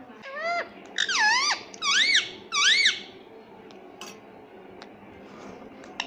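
Ring-necked parrot giving four squeaky calls in the first three seconds, each swooping down and up in pitch, then falling quiet.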